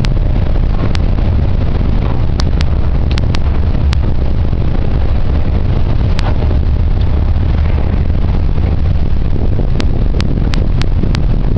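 Steady low rumble of a passenger ferry under way, heard on its open deck. Sharp clicks are scattered through it, with a quick run of them near the end.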